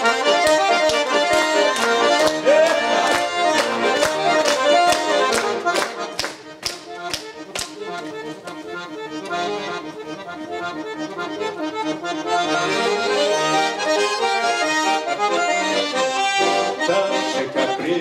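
Russian garmon (button accordion) playing an instrumental passage of a folk tune, with no singing. For the first seven seconds or so sharp regular clicks come about two to three a second. The playing softens for a few seconds in the middle, then grows fuller again.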